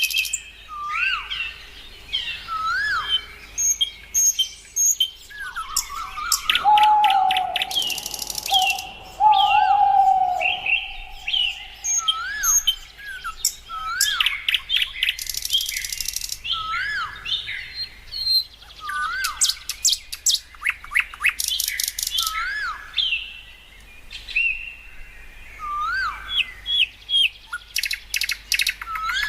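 Many small birds chirping and calling together, with repeated short rising-and-falling call notes and bursts of rapid high twittering. A separate steady lower tone with a hiss starts about six seconds in and runs for about four seconds.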